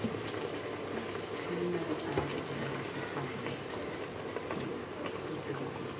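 Water poured in a steady stream into a pot of simmering fish stew, splashing into the liquid.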